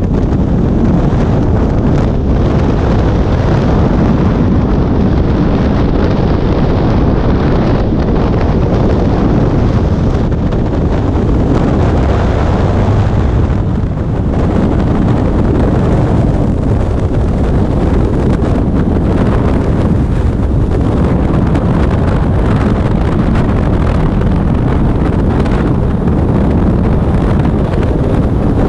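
Wind rushing over the camera microphone in skydiving freefall: a loud, steady rush with a heavy low rumble.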